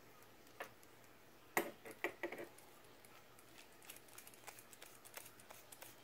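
Small metallic clicks and ticks as a Torx 10 precision screwdriver turns a pivot screw into a butterfly knife's pivot. A sharper click comes about a second and a half in, a few more around two seconds, then light scattered ticking.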